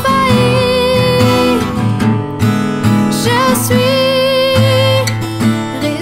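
A woman singing a worship song over a strummed acoustic guitar, holding two long notes, one at the start and another from about halfway through.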